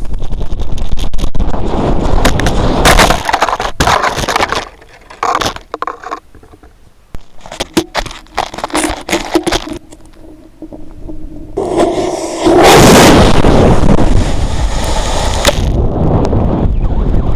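Fireworks going off right at a camera mounted on them: loud rumbling and rushing with scattered sharp cracks, easing to a quieter stretch of sparse pops in the middle, then loud again about two thirds of the way through.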